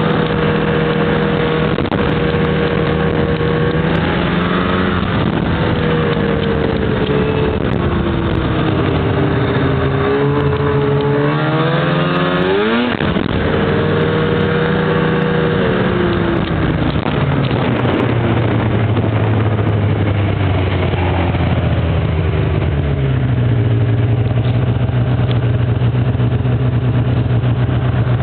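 Snowmobile engine running under way, its pitch sagging and then climbing sharply about halfway through as it speeds up, then falling to a lower steady tone for the last few seconds as the sled slows.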